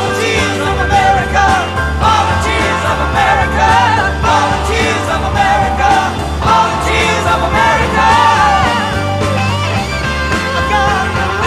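Rock music soundtrack: a wavering lead melody over a steady, pulsing bass line.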